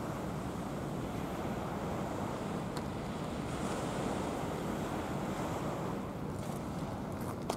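Steady rushing noise of wind on the microphone mixed with surf washing on the beach, with a single short tap near the end.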